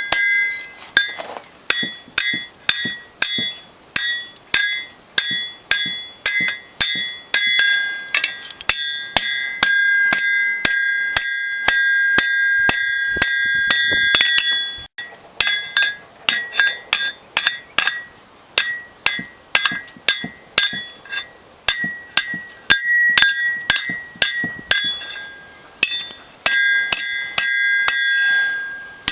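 Hand hammer striking hot 12 mm square steel bar on an anvil, forming a round eye, each blow followed by a bright metallic ring. The blows come about two a second, with a quicker run of lighter strikes in the middle.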